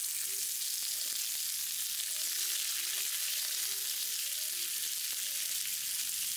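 Cheese grilling, sizzling steadily in a hot pan.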